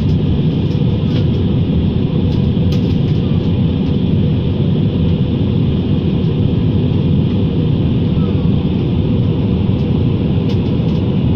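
Steady roar inside the cabin of an Airbus A320-216 in flight: engine and airflow noise, heavy in the low end, with a few faint clicks over it.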